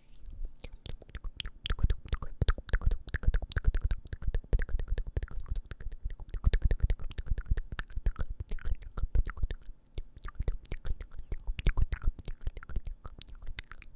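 ASMR mouth sounds close to the microphone: rapid wet clicks, smacks and pops, several a second, continuing without pause and cutting off suddenly at the end.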